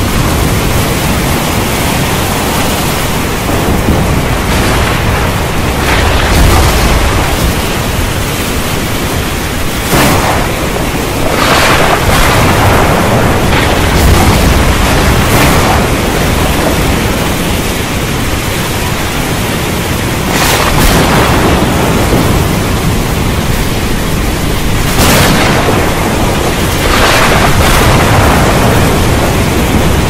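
Heavy rain falling steadily, with thunder through it: low rumbles and about half a dozen sharp cracks spread across the stretch.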